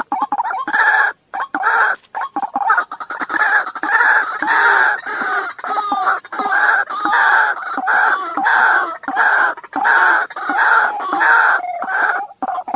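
White-breasted waterhen call, played as a trapping lure: loud notes repeated about twice a second, breaking into quicker stuttering notes near the end.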